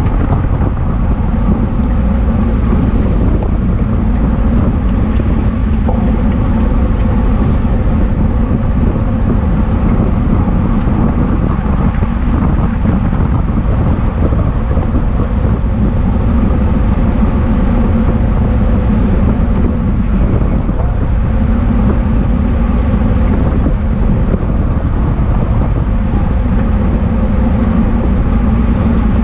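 Steady wind rush and buffeting on the microphone of an action camera mounted on a road bike moving at race speed, with a low constant rumble.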